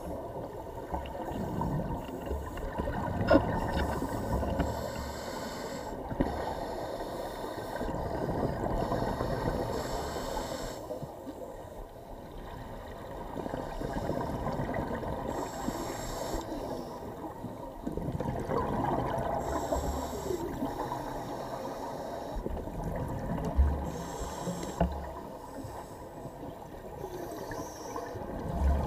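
Scuba diver breathing through a regulator underwater: a hiss on each inhale and a burble of exhaled bubbles, about one breath every four to five seconds. Two sharp knocks stand out, one about three seconds in and one near the end.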